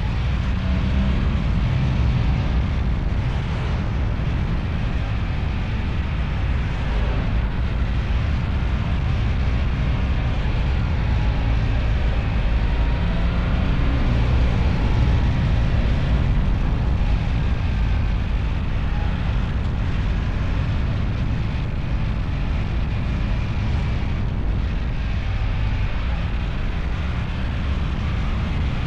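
Steady rumble of a moving vehicle, its engine mixed with wind and road noise.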